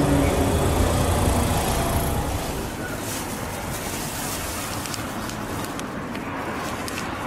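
JR Shikoku 8000 series electric train moving away, its running sound falling in pitch and fading over the first two seconds. After that there is a quieter steady outdoor background noise with a few faint clicks.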